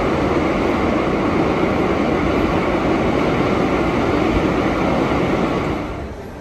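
A train moving past a station platform: a loud, steady rushing noise that drops away near the end as the last car clears.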